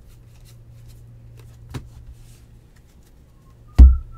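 Trading cards being handled and sorted by hand: light flicks and clicks of cardboard cards, then one heavy thump near the end.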